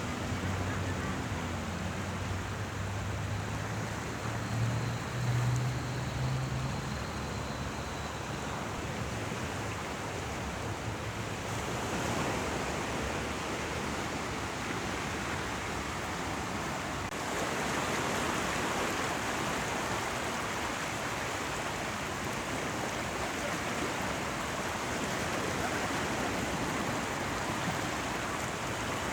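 Sea waves washing in and running water making a continuous rushing wash, which grows louder about twelve seconds in and again about seventeen seconds in. A low hum lies under it for the first several seconds.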